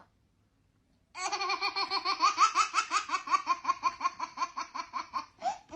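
Baby laughing: a long run of quick, even laugh pulses, about seven a second, starting about a second in and lasting about four seconds, then one short laugh near the end.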